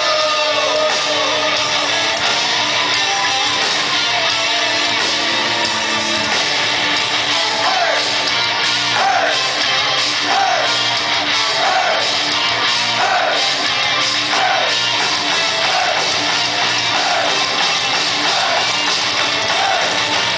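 Heavy metal band playing live, loud, with electric guitars. From about eight seconds in, a short melodic figure repeats roughly every three-quarters of a second.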